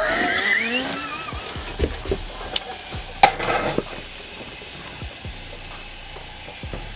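Food sizzling in a saucepan on a camp stove while a wooden spoon stirs it. A wavering pitched sound in the first second, then a sharp knock a little over three seconds in and a lighter one just after.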